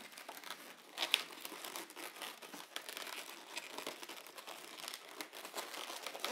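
Inflated white 260 latex modelling balloons rubbing and crinkling under the fingers as one is tied onto another, with a louder rub about a second in.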